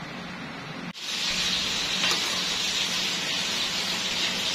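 Steady sizzling hiss of food cooking, starting abruptly about a second in; before it, only faint room noise.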